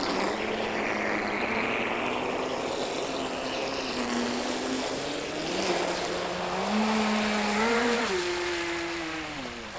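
Electric RC speedboat's motor whining as the boat runs across the water, over a steady hiss. The pitch steps up and climbs in the second half, then drops sharply about eight seconds in as the throttle comes off.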